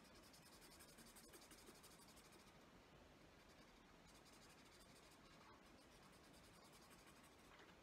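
Faint scratching of a pen colouring in on paper, in quick back-and-forth strokes that come in short spells.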